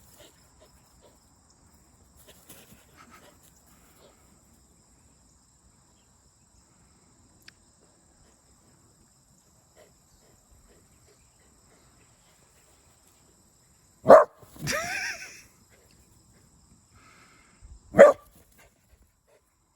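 Australian Shepherd barking at a snake: a sharp loud bark about fourteen seconds in, followed by a brief pitched cry, then a second single bark some four seconds later.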